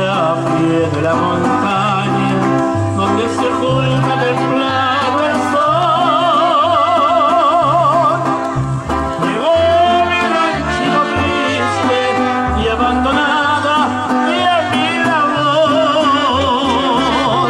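Latin band music: brass playing a melody with vibrato over a bass line that steps from note to note.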